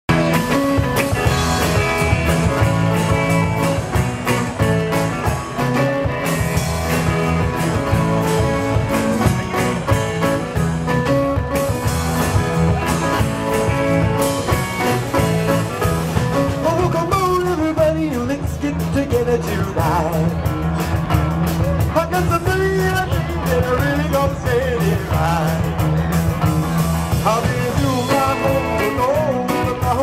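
Live rock 'n' roll band playing: upright bass, electric guitar and drums keeping a steady driving beat, with a melody line that wavers in pitch through the second half.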